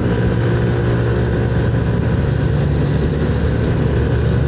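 Steady engine and road noise from riding a small automatic motor scooter in traffic, close behind and beside buses.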